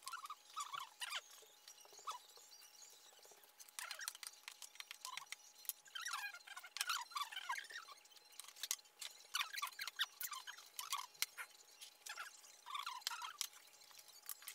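Close-up eating sounds of black-bean noodles: quick wet slurps, chewing and lip smacks, with the odd sharp click of chopsticks or a bowl.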